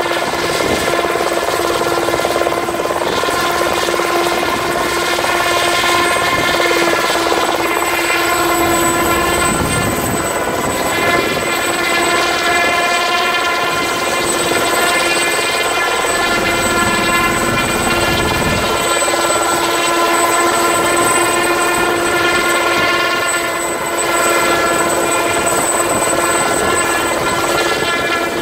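Ultrasport 496 light helicopter running steadily through lift-off and a low hover. Its engine and rotors give a loud, even, pitched drone with a thin high whine above it, holding the same pitch throughout.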